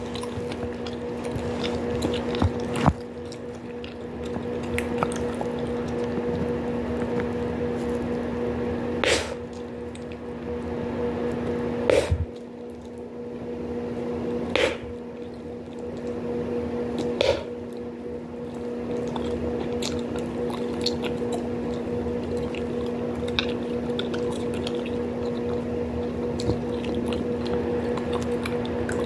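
Bubblegum being chewed close to the mouth with wet smacking sounds, and about five sharp bubble pops spread over the first twenty seconds. A steady low hum runs underneath.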